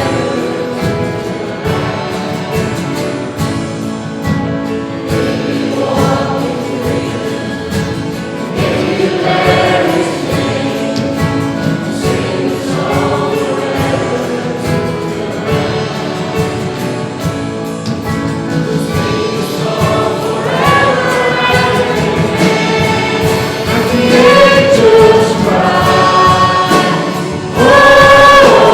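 Congregational worship singing: a choir or congregation singing a hymn with musical accompaniment, growing louder near the end.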